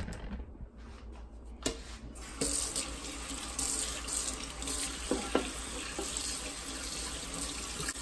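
Kitchen faucet turned on about two and a half seconds in, after a few light knocks, then water running steadily into a stainless steel sink while a plastic vacuum part is rinsed and rubbed under the stream.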